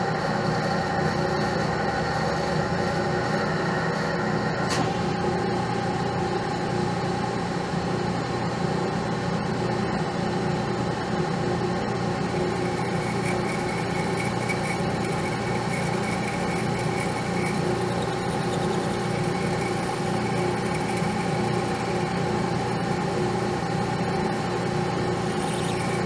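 Metal lathe running steadily with a workpiece spinning in the chuck; partway through, a boring bar cuts inside the bore, adding a faint high tone for a few seconds.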